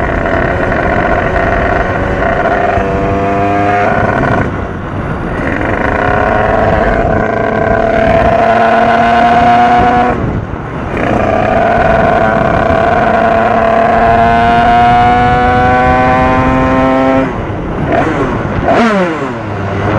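88cc pit bike's single-cylinder four-stroke engine pulling up through the gears, its pitch climbing in each gear and dropping sharply at the shifts about four, ten and seventeen seconds in, then easing off near the end. Geared short on a 13-tooth front sprocket, it spins up high ("ça mouline").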